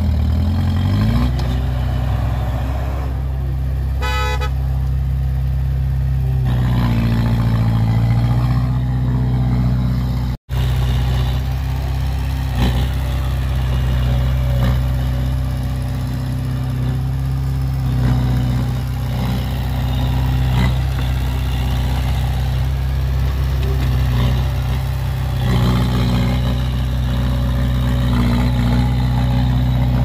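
Diesel engines of a small Komatsu crawler bulldozer and a dump truck working under load, the engine pitch rising and falling as they rev near the start and again about seven to nine seconds in. A short horn toot sounds about four seconds in.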